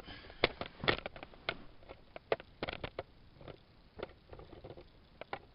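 Scooter parts being handled: a dozen or so light, irregular clicks and knocks as the front wheel and its hardware are picked up and set in place.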